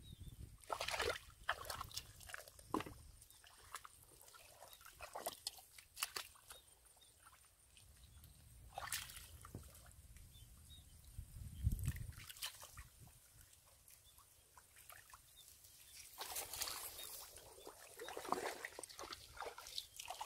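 Bare feet squelching and sloshing through soft mud and shallow muddy water, with irregular small splashes and sucking sounds as each foot is pulled out.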